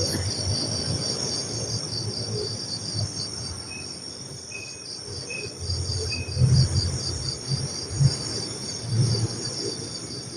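Crickets chirping in a steady, rapidly pulsing night chorus, with four short high peeps a few seconds in and some low thumps in the second half.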